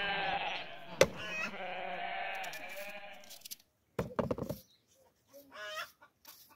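A farm animal bleating: one long, wavering call, then shorter calls in the second half. A sharp knock sounds about a second in.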